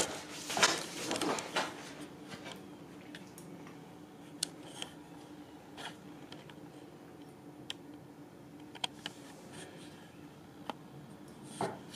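Paper rustling as a large card is handled, loudest in the first second or two, then only scattered light clicks and small rustles.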